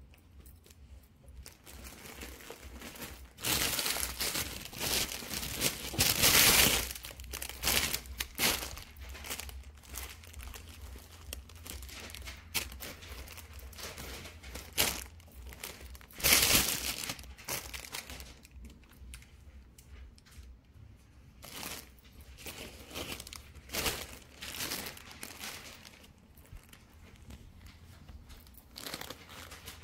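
Plastic bags or packaging rustling and crinkling as they are handled, in irregular bursts that are loudest twice, about four to seven seconds in and again around sixteen seconds.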